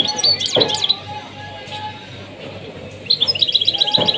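A small caged songbird singing a fast twittering song. A cluster of quick chirps and trills opens it, and near the end comes a rapid run of evenly repeated high notes.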